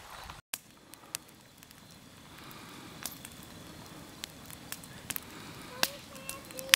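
Wood campfire crackling, with many scattered sharp pops over a low steady hiss. The sound drops out briefly about half a second in. A few short pitched tones sound near the end.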